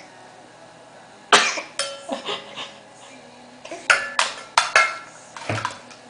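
A young child hiccupping, a series of sharp, sudden catches of breath at uneven intervals starting about a second in.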